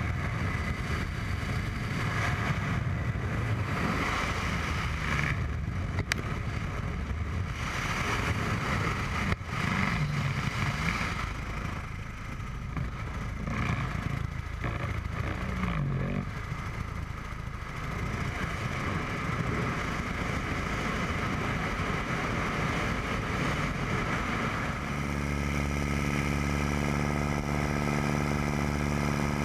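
Light propeller biplane in flight, its piston engine droning under heavy wind rush on an open-cockpit camera's microphone. For the last few seconds the engine comes through as a steady hum with a clear pitch.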